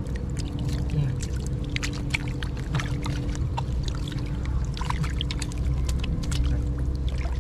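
Hands groping and sloshing in shallow muddy water, with many short splashes and squelches, as catfish are caught by hand in the mud. A steady low drone runs underneath.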